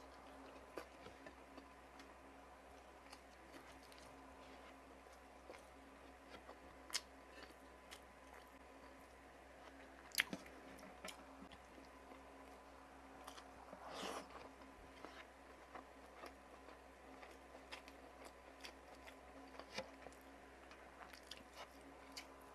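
A person eating into a close microphone: quiet chewing with scattered mouth clicks and smacks, one sharper click about ten seconds in and a short crunchy burst a few seconds later.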